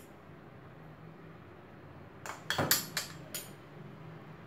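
A quick run of light clicks and knocks from kitchenware being handled, about two and a half seconds in, over a faint steady hum.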